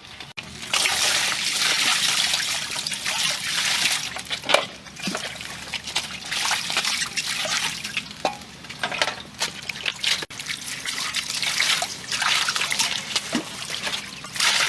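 Water pouring and splashing over a leg of raw beef in a large basin as it is rinsed by hand. The water starts about a second in and runs unevenly, rising and falling.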